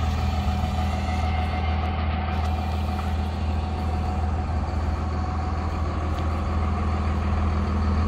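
A large vehicle's engine idling steadily, an even low hum that does not change speed.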